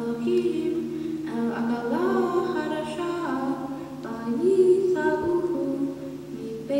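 A girl's solo voice chanting Hebrew scripture in cantillation, unaccompanied, with long held notes that slide up and down between pitches.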